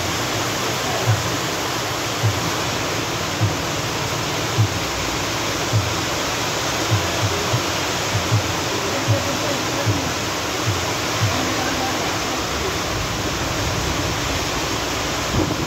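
Heavy rain pouring down steadily, with a short low thud about once a second.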